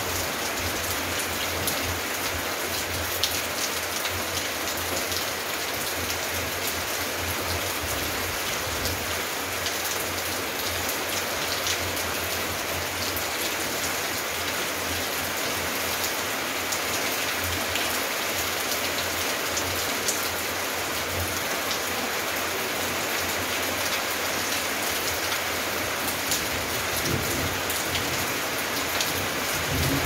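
Steady rain, with many scattered sharper drop impacts.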